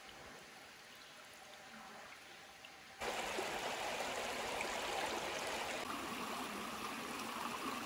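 Shallow creek water running over rock: a faint trickle at first, then louder and closer from about three seconds in.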